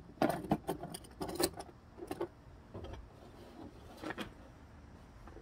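Metal costume-jewelry brooches clinking and rattling against each other as they are picked through: a quick run of small clicks in the first two seconds, then a few more about four seconds in.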